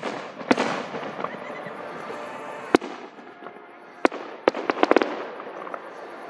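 Fireworks display: aerial shells bursting with sharp bangs, one followed by a crackling spray about half a second in. Single bangs come at intervals of a second or more, then a quick string of five or six bangs about five seconds in.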